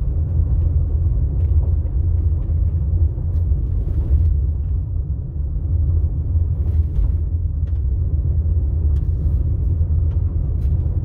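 Steady low rumble of a vehicle driving on a gravel road, heard from inside the cab, with a few faint ticks over it.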